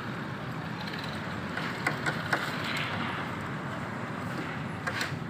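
A few light clicks and scrapes of a screwdriver working the terminal screws of a VFD, over a steady low hum.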